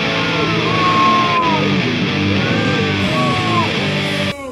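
Les Paul-style copy electric guitar played rock-style, with notes bent up and down. The playing stops abruptly near the end.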